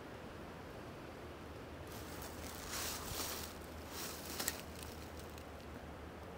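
Faint rustling in leaves and brush: a few short rustles in the middle and a small click, over a steady low background hiss.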